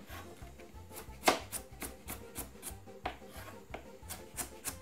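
Kitchen knife slicing bell peppers on a wooden chopping board: a run of irregular knocks as the blade strikes the board, the loudest about a second in.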